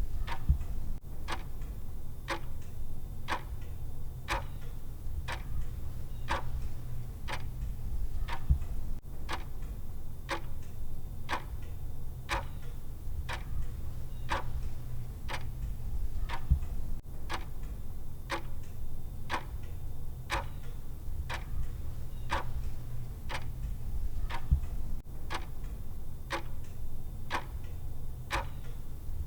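Clock ticking evenly about once a second, the timer's tick sound, over a steady low hum.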